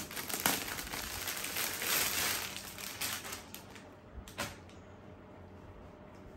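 Plastic packaging crinkling and rustling as a garment is pulled out of its wrapper, dying away after about three and a half seconds, with one sharp click a little later.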